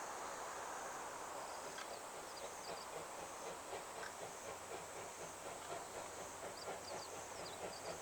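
C57 steam locomotive working a train, heard faintly at a distance, with a weak regular beat that grows clearer in the second half.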